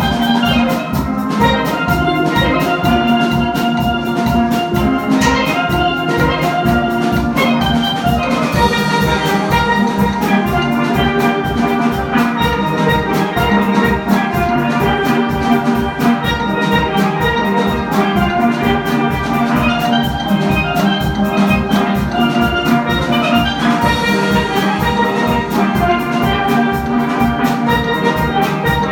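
Steel band playing: steelpans ringing out a melody and chords over a steady drum beat.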